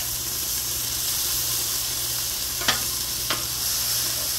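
Vegetables sizzling on a hot Blackstone steel flat-top griddle as metal spatulas scrape and push them together. Two sharp clicks of a spatula against the griddle come about two and a half and a little over three seconds in.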